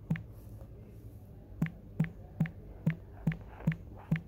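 Typing on a smartphone's touchscreen keyboard: about eight short key clicks, one per tap. After the first there is a pause of about a second and a half, then the rest come at a steady two to three a second.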